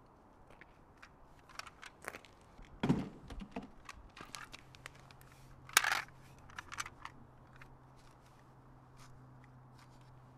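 Quiet scuffs, crunches and clothing rustles of a person crouching and moving on gravel, with a soft thud about three seconds in and a louder brief scrape about six seconds in. A faint low hum comes in about four seconds in.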